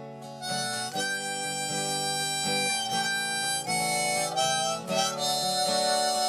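Harmonica playing a melody over strummed acoustic guitar, an instrumental break between sung verses of a folk-style song.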